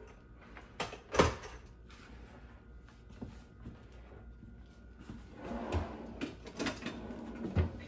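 Scattered kitchen handling knocks: a hard clunk about a second in as an electric hand mixer is set down on the countertop. Near the end comes the rattle and knock of a utensil drawer being opened and rummaged.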